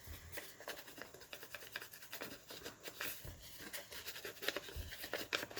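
Paper being handled: faint rustling, rubbing and small scratchy taps, scattered irregularly.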